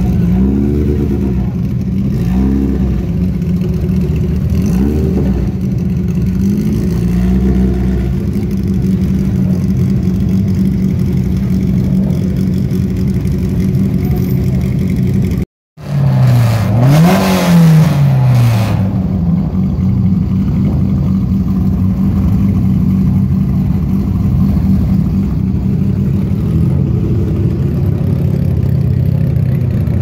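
Classic racing cars' engines idling roughly, with short throttle blips that rise and fall. First an Alfa Romeo coupe's engine gives several quick blips; then, after a sudden break, a Fiat Abarth 1000's engine revs up sharply once and drops back to a steady idle.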